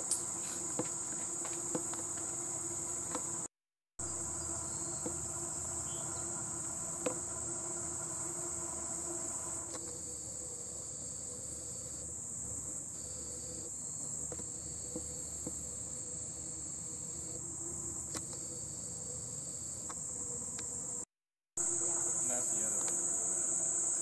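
Continuous high-pitched chorus of insects trilling steadily in summer vegetation, with a second, lower steady buzz joining for several seconds midway. The sound cuts out briefly twice.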